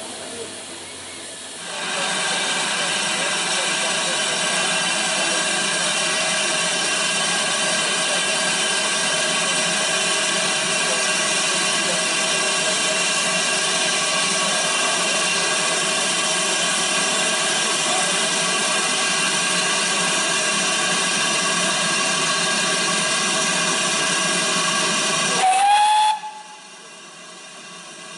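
Safety valves of a GWR large prairie tank locomotive blowing off: a loud, steady roar of escaping steam, the sign of a boiler at full pressure. It starts about two seconds in, swells briefly near the end and then cuts off sharply as the valves reseat.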